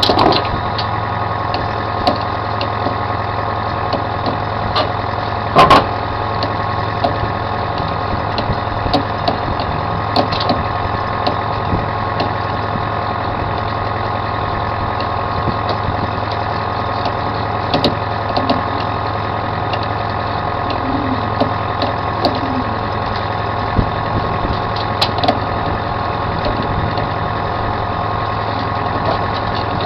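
Commercial salmon troller's engine running steadily at trolling speed, with a loud knock about six seconds in and a few lighter clicks now and then.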